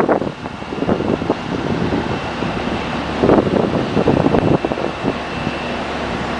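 Wind buffeting the microphone in gusts, heaviest about three seconds in, over the steady running of a heavy machine's engine.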